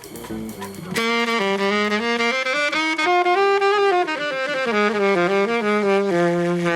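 Saxophone playing a short melodic phrase, a single line moving up and down in steps and settling on a held low note near the end.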